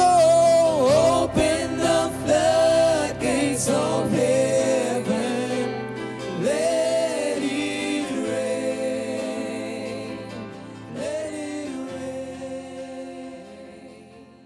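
Gospel worship singers holding wavering, drawn-out notes over sustained low chords, the music fading out gradually over the last several seconds.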